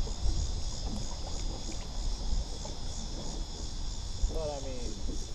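Steady, high insect chorus with a slight pulse, over an uneven low rumble; a short voice comes in about four seconds in.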